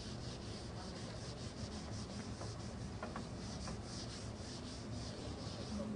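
Whiteboard eraser wiping a whiteboard, a faint rubbing made of repeated strokes.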